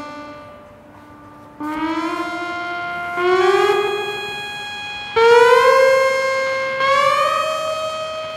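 Synthesizer tones through studio monitors: a held note fades, then from about a second and a half in a rising series of notes enters, each starting suddenly and sliding up in pitch, about one every one and a half to two seconds.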